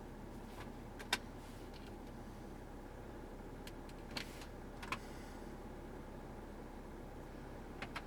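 A few short, sharp clicks, such as switches or controls being pressed inside a car, over a steady low hum. The loudest click comes about a second in, two softer ones come around the middle, and one comes near the end.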